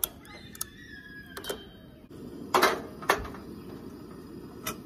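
A Coleman two-burner propane camp stove's burner, just lit, burning with a steady low rush that grows stronger about two seconds in. Sharp metal clanks and clicks come as a stainless steel kettle is handled and set on the stove's grate.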